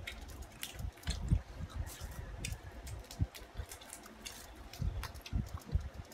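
Eating sounds: wet chewing and smacking, with scattered small clicks and a few low knocks.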